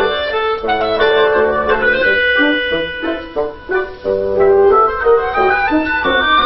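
Wind quintet of flute, oboe, clarinet, bassoon and French horn playing together in short, overlapping notes, with a brief thinning of the texture about halfway through.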